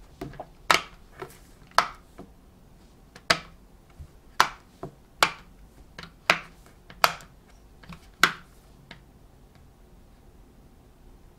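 Silicone bubbles of a Go Pop Colorio push-pop fidget game being pressed in turn: about a dozen sharp pops at irregular intervals, roughly one a second, stopping about nine seconds in.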